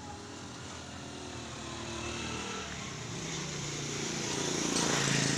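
Bajaj Pulsar NS200 single-cylinder motorcycle engine running steadily through a custom exhaust, growing louder near the end.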